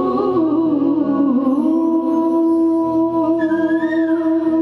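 Live Dogri song: a woman singing with instrumental accompaniment, her line bending at first and then settling into a long held note. About three seconds in, a high wavering instrumental melody joins.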